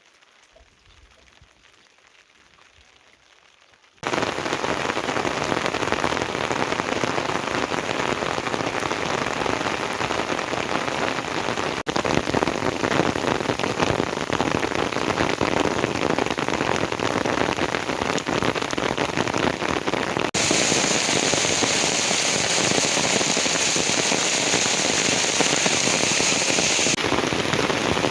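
Heavy rain falling in a steady hiss, cutting in abruptly about four seconds in after a quiet start. For several seconds near the end the hiss turns brighter and sharper, then settles back.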